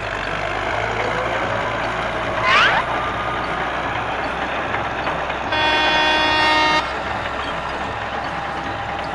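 Truck engine sound effect running steadily while a toy excavator digs in sand. A truck horn honks for just over a second about five and a half seconds in, and a short rising squeal comes about two and a half seconds in.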